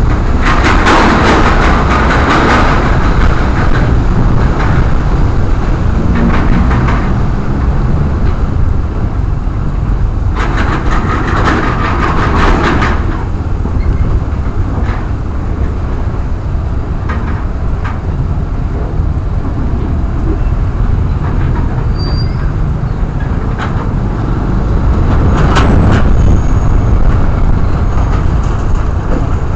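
Motorcycle ride heard through a helmet-mounted camera: steady rumbling wind and road noise, with louder rushing spells near the start, around the middle and near the end.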